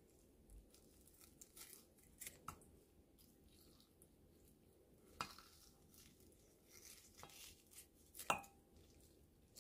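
Faint, scattered cutting snips and clicks as a raw squid's eyes are cut off, with the loudest click about five seconds in and another just after eight seconds.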